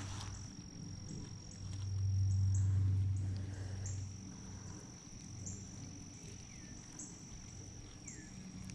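Insects trilling steadily in a high pitch, with a second higher note switching on and off. A low hum swells about two seconds in and fades out by four seconds.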